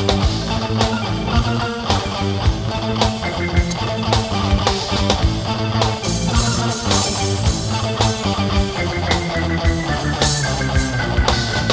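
Rock band playing an instrumental passage with no singing: electric guitar and bass over a steady drum beat.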